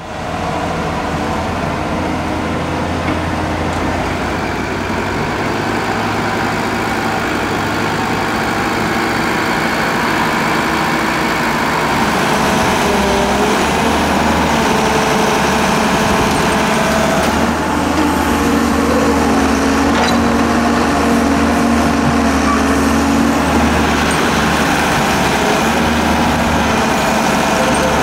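Hyundai Robex 1300W wheeled excavator's diesel engine running steadily while the machine digs into a sand pile with its bucket. It gets louder about halfway through.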